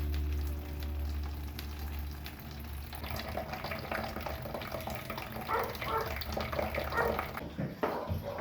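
Food sizzling in a pan as it is stirred, an irregular crackle that builds from about three seconds in, over a low hum at the start.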